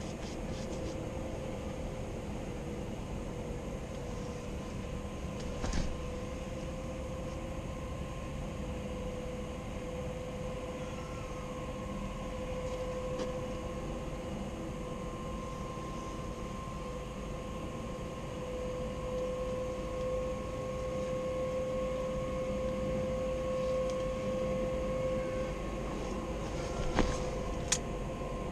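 Steady mechanical drone with a held mid-pitched tone, growing slightly louder for a while after the middle. A few faint clicks sound about six seconds in and near the end.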